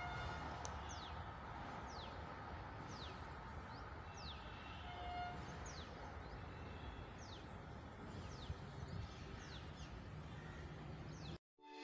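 A bird calling: short high notes that fall in pitch, repeated about once a second, over a faint low rumble of outdoor background noise. The sound cuts off abruptly near the end.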